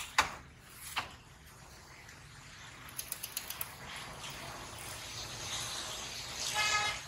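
Wire frying basket knocking against a bowl, then a quick run of light metal clicks. French fries then sizzle and bubble in a pot of hot oil, the sizzle growing louder, with a brief pitched tone near the end.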